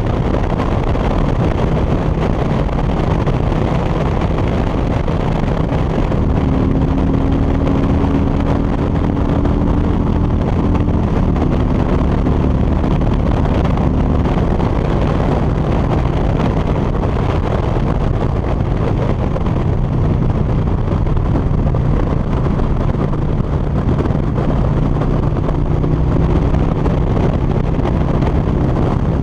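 Harley-Davidson touring motorcycle at highway cruising speed: a steady rush of wind over the microphone with the V-twin engine running underneath, its pitch rising slightly for a few seconds near the middle.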